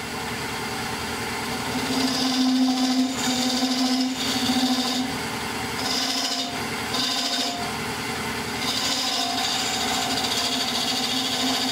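Wood lathe running with a steady hum while a skew chisel cuts through black paint on the spinning oak blank down to bare wood. Each cut is a scraping hiss, in several short passes, the longest near the end.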